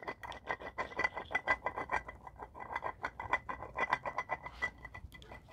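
Old water pump from a BMW E70 X5 4.8 V8, turned by hand at its pulley, grinding and clicking in a rapid, uneven run of ticks over a faint high squeal. This is a noise the pump is not supposed to make, the sign of the failed old pump, where the new one turns silently.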